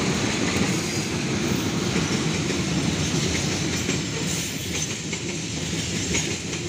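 Coal train wagons rolling past at close range: a steady rumble of steel wheels on the rails, with a few sharp clicks from the wheels later on.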